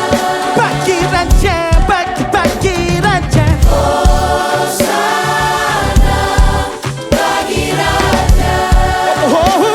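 Gospel worship music: a choir and lead voices singing over a full band with drums, bass and keyboards, with quick melodic runs in the voices.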